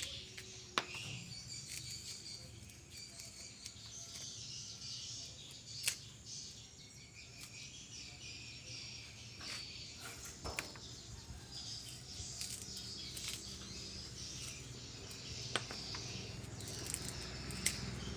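Outdoor ambience of birds and insects chirping, over a low steady hum, with a few sharp clicks, the loudest about a second in and again near six seconds.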